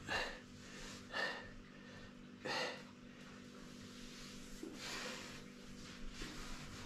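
Short, sharp breaths, three about a second apart in the first three seconds, then a longer, fainter breath a couple of seconds later.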